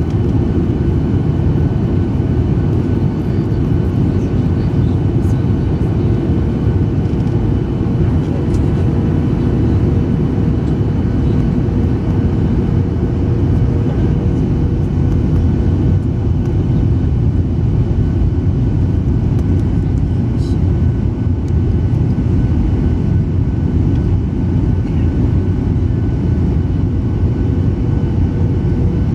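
Steady jet airliner cabin noise in a Skymark Boeing 737-800 on approach: a constant low rumble of airflow and engines with a thin steady hum above it.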